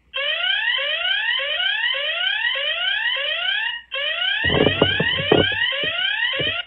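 Feit floodlight security camera's built-in siren, set off from its phone app, wailing in fast repeated rising sweeps, about one and a half a second, with a brief break near the middle before it cuts off abruptly. Several dull knocks sound over the second half.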